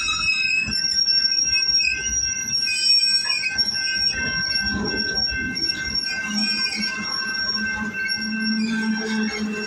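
Tail end of a freight train rolling past, its wheels squealing on the rail in steady high-pitched tones over a low rumble with scattered knocks from the wheels.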